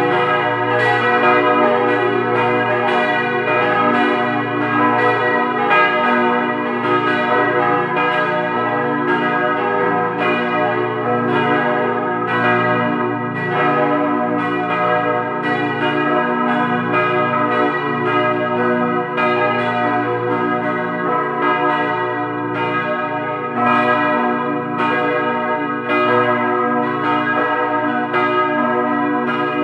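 Several large swinging church bells, bronze bells cast by Ruetschi of Aarau, ringing together at close range in the bell chamber, their strikes overlapping about every half second with a deep, sustained low hum beneath.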